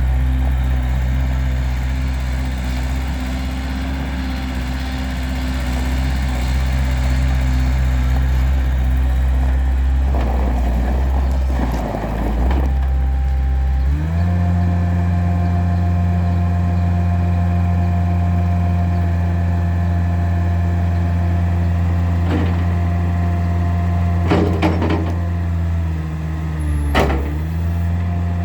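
2005 Mustang 2054 skid steer loader's engine running, first at a low steady idle, then stepping up to a higher steady speed about halfway through. A few short knocks come later, and near the end the engine note briefly drags down and recovers, as under a hydraulic load.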